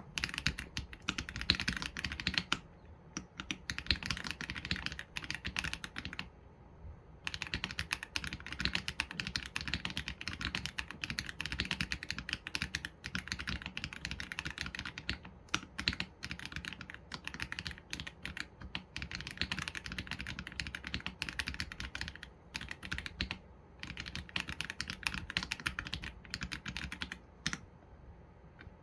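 Continuous fast typing on an AULA F87 Pro mechanical keyboard with Leobog Graywood V3 linear switches and PBT keycaps: a dense run of keystroke clacks, broken by brief pauses, the longest about six seconds in.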